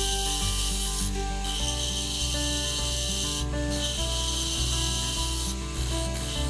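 Lathe tool cutting the inside of a spinning crepe myrtle goblet's cup: a steady rasping hiss that breaks off briefly a few times as the tool is eased off the wood. Background music plays underneath.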